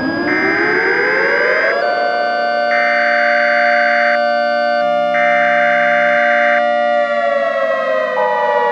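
Civil defense siren sounding in a wail: the pitch rises, holds steady for about five seconds, then begins to fall near the end. A higher tone over it cuts in and out about every two and a half seconds.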